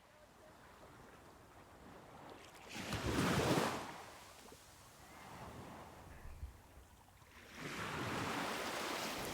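Ocean surf washing in: one wave swells to a peak about three seconds in and fades, and another rises near the end and holds.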